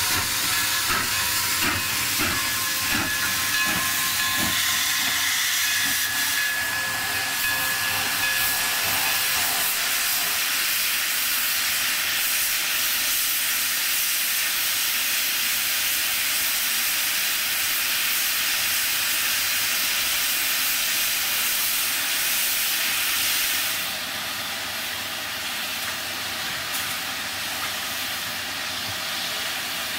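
K-36 narrow-gauge steam locomotive hissing steam steadily, with a faint steady tone in the first several seconds. About 24 s in the hiss drops a little quieter and changes character.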